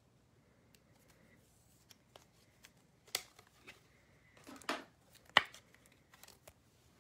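Baseball cards and plastic card holders being handled: scattered light clicks and rustles, with a few sharper clicks about three, four and a half and five and a half seconds in.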